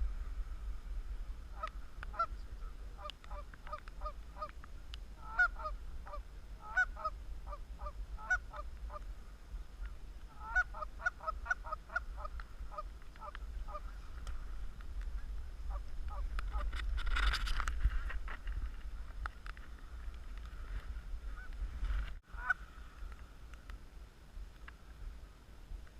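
Canada geese honking over and over, many short calls overlapping, with a steady low wind rumble. The honking thins out about halfway through, a louder rush of noise swells and fades around two-thirds of the way in, and one last honk follows.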